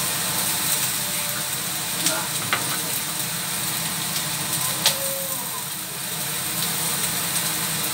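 Chicken feet, scallions and ginger sizzling in a wok, over a steady background hum. A few sharp clicks come about two and two and a half seconds in, and again near five seconds.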